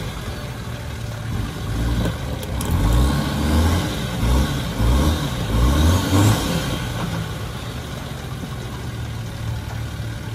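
Four-wheel-drive vehicle's engine revving up and down several times in quick succession, then settling to a steadier, quieter run for the last few seconds.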